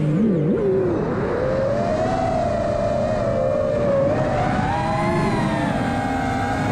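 Electric motors of a small FPV drone in flight, whining with a pitch that dips low and wobbles at first, then climbs about a second in and keeps wavering up and down with the throttle.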